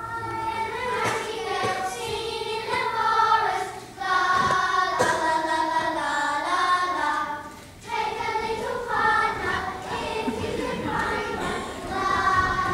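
A group of children singing together as a choir, in sustained phrases with short pauses about four and eight seconds in.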